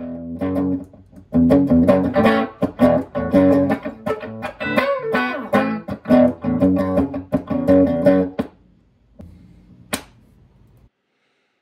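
Electric guitar played through a Fender Pro Junior III tube combo amp at full power, a run of picked notes and chords that stops about 8.5 seconds in. About 10 seconds in comes a single sharp pop as the guitar cable is pulled from the amp's input jack.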